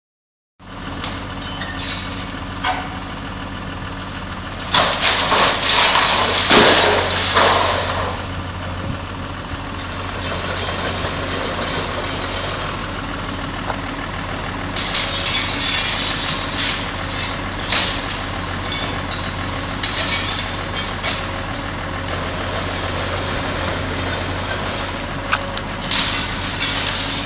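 Wheeled demolition excavator's diesel engine running steadily, with crashing and clattering of metal glasshouse framing and glass as its grab pulls the structure down, loudest about five to eight seconds in.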